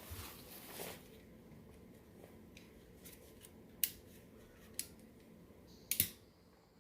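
A short rustling hiss, then a few sharp clicks about a second apart, the last the loudest: tools and wires being handled while splicing headlight wiring with solder-seal butt connectors.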